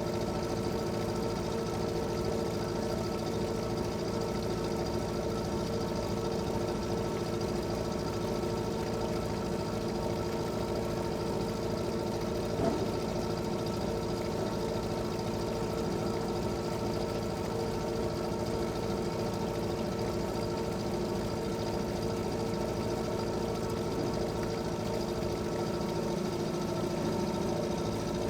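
Fishing boat engine running steadily at a constant speed, its pitch and loudness unchanging, with a single brief knock about halfway through.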